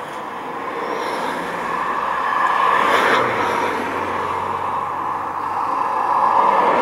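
Strong gusty wind with choppy water: a loud, even rushing noise that swells twice, about three seconds in and again near the end.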